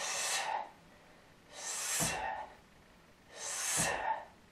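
Three forceful breaths of effort, a little under two seconds apart, as a karateka presses against a makiwara with the rear hand; the second and third each start with a dull low thump.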